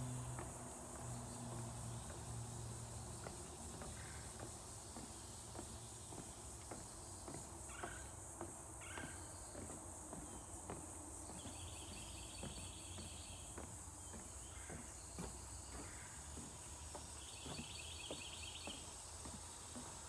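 Steady high-pitched chorus of insects in a wooded wetland, with soft, regular footsteps on a wooden boardwalk. Twice, a brief trill rises above the chorus, once midway and once near the end.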